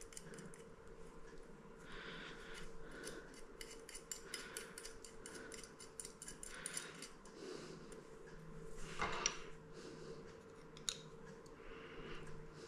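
Faint small metallic clicks and clinks of screws, washers and a fixture bracket being handled by hand, with one brief louder rustle about nine seconds in.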